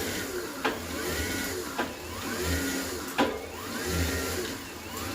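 Tongsheng TSDZ8 mid-drive e-bike motor driving the wheel under throttle against a lightly held brake, its whine rising and dropping away about once a second with a pulsing low hum, and a few sharp clicks among the pulses. The motor is pulsing under the brake load, for a reason the rider does not know.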